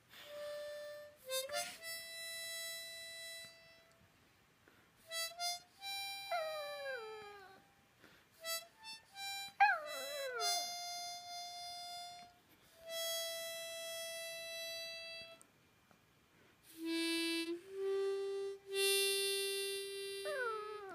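Harmonica playing long held notes in short phrases with pauses between them, while a long-haired chihuahua howls along in a few long howls that slide down in pitch, two in the middle and another starting near the end.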